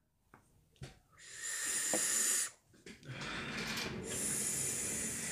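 Two long hissing draws of air through a dripping atomizer fired on a micro Clapton helix zipper coil, the first about a second and a half long, the second about three seconds.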